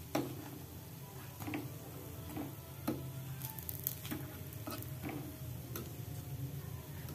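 A fork clicking and scraping against the metal cups of a wingko mould as the cooked cakes are turned and lifted out. The clicks are light and irregular, about one a second, over a steady low hum.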